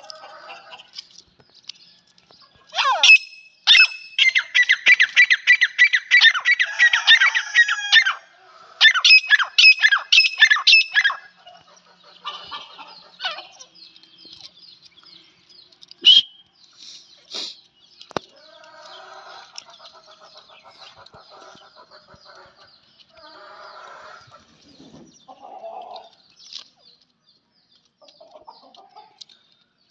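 Grey francolins calling: a loud, fast, ringing series of repeated high calls in two bouts, from about three to eight seconds in and again from nine to eleven, then softer chatter and a few sharp clicks.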